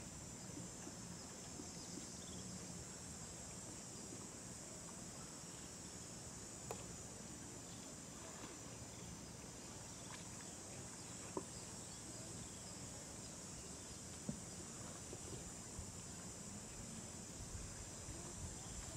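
Steady high-pitched drone of insects, crickets or cicadas, with a few short sharp clicks spread through it.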